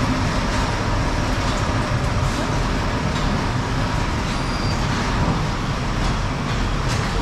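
Steady rumble and hiss of a working warehouse's machinery, with a faint steady tone running through it.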